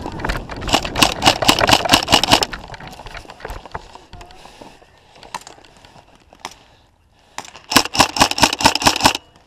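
Tokyo Marui High Cycle AUG airsoft electric gun, run on an 11.1 V LiPo, firing on full auto: a fast rattle of shots in two bursts of about two seconds each, one just after the start and one near the end, with a few single clicks in between.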